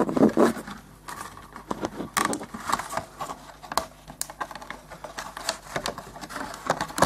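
A small nylon zip tie being pulled closed through holes in a plastic RC car body, its ratchet giving irregular sharp clicks, along with scraping as the plastic shell is handled.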